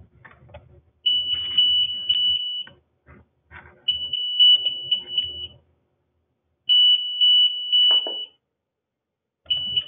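Alertus Alert Beacon sounding its intruder-lockdown alarm: a high-pitched, pulsing tone in bursts of about a second and a half, repeating every few seconds. Three full bursts are heard, and a fourth begins near the end.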